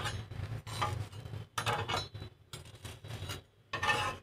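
Metal spatula scraping against a nonstick tawa as a slice of toasting bread is worked loose and turned, a series of short scrapes spaced roughly a second apart.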